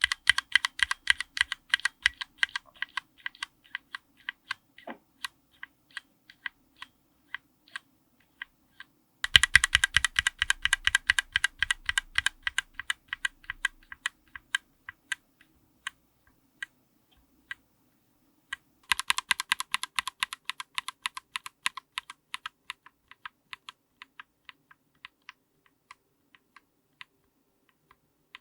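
Keys typed on a mechanical keyboard with linear switches and GMK keycaps, close-miked. There are three runs, starting at the beginning, about nine seconds in and about nineteen seconds in. Each run opens with a quick flurry of key presses and thins out to slower single presses, and the tone of the clacks changes at each new run as a different switch is heard.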